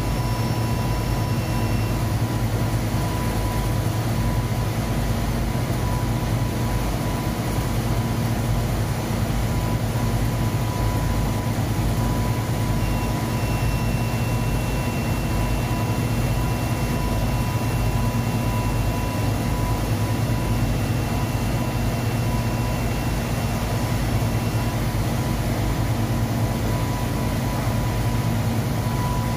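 Industrial laundry machinery running with a loud, steady low hum and a thin steady whine above it; a fainter higher tone comes and goes through the middle.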